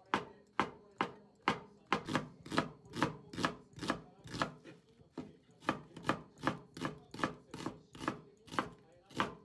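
Chef's knife slicing shiitake mushrooms and then an onion on a plastic cutting board. The blade strikes the board in a steady rhythm of about two to three sharp chops a second.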